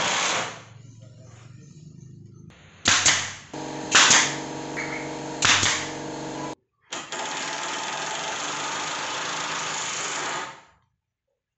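Woodworking power tools at work on plywood: a burst of noise, then three sharp shots about a second apart over a steady motor hum that cuts off abruptly, followed by about four seconds of steady rushing noise.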